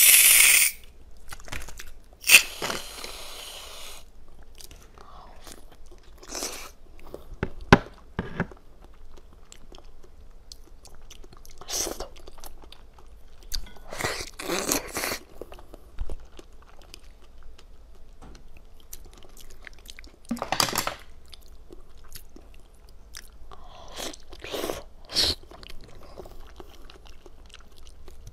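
Two short hissing sprays of whipped cream from an aerosol can at the start. After that come close-miked bites and chewing of corn on the cob set in clear jelly, a bite every few seconds.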